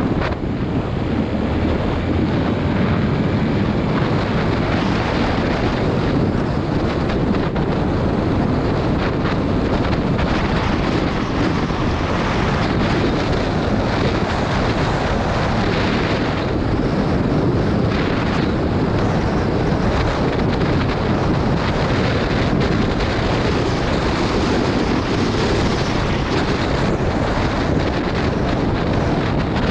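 Wind buffeting the microphone of a camera on a moving motorcycle, with the bike's engine running underneath.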